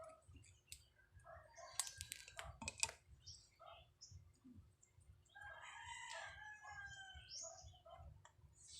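A rooster crowing faintly in the background, one long crow about five seconds in, with short calls of other fowl scattered around it. A few sharp clicks of small metal parts being handled come about two seconds in.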